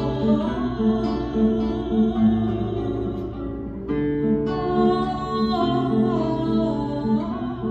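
A woman sings a Latin American vals (waltz) with vibrato to classical guitar accompaniment. Her voice breaks off briefly a little before the middle and comes back about four seconds in, while the guitar keeps playing.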